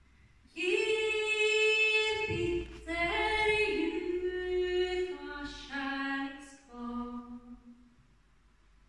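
A woman singing unaccompanied: a phrase of long held notes that steps downward in pitch and ends about seven and a half seconds in.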